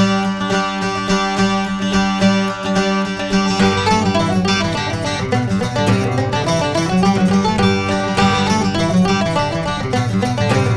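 Background music of plucked strings in a banjo-like country style, picking up into a busier, quicker rhythm about three and a half seconds in.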